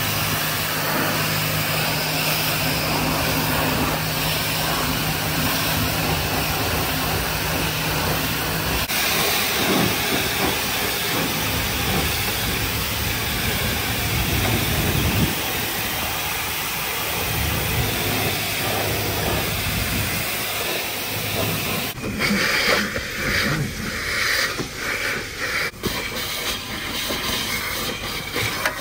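High-pressure spray wand at a self-serve car wash blasting water against a cargo van: a steady, loud hiss. A low hum runs under it and stops about nine seconds in, and the spray turns choppy and uneven near the end.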